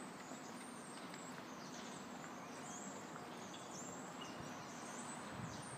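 Steady outdoor background noise with several faint, short high chirps scattered through it.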